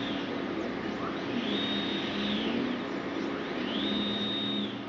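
NEMA17 stepper motors with 50:1 planetary gearboxes driving a SCARA robot arm's joints: a whine that rises in pitch, holds high, then falls as each move speeds up, cruises and slows, twice over. A steady lower hum runs beneath.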